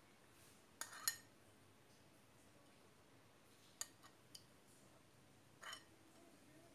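A metal spoon clicking and clinking against a glass bowl and ceramic plate as paste is scooped out: two sharp clicks about a second in, two lighter ones around four seconds, and a brief scrape near the end, over near silence.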